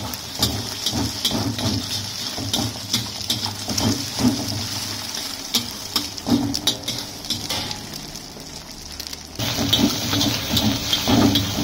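Scrambled egg sizzling in oil in a steel wok, with a metal spatula scraping and tapping against the pan again and again as the egg is broken up. A steady low rumble runs underneath, and the sound changes abruptly about nine seconds in.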